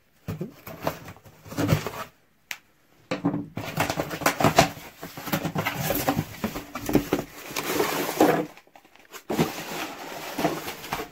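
Cardboard box being opened by hand: flaps pulled apart, rubbing and scraping, in irregular handling noise with two short pauses, one a couple of seconds in and one near the end.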